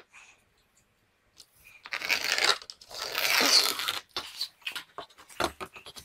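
Scraping against a textured drywall wall as a 4-foot level is slid down it and a stud line is marked. There are two long scrapes, then several short knocks and scratches near the end.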